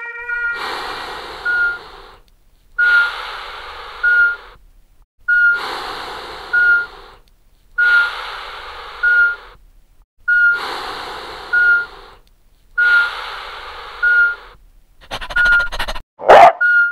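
Operating-theatre sound effects: a patient monitor beeping steadily, about one high beep every 1.2 seconds, over a rhythmic whoosh of breaths about every 2.5 seconds. Near the end, a flurry of rapid clicks and then one loud, sudden burst.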